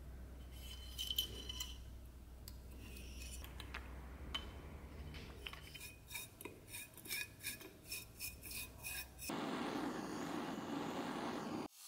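A few light metal clinks, then a flux brush dabbing against the metal powder box in quick clicks, about three a second. About nine seconds in a handheld gas torch lights and hisses steadily as its flame heats the box.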